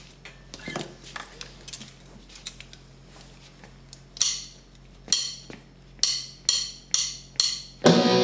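Knocks and rustles of a bass player settling onto a chair with his Yamaha electric bass, over a low steady hum. Then a count-in of six sharp clicks, two slow and four quicker, and just before the end the band backing track and the bass come in together.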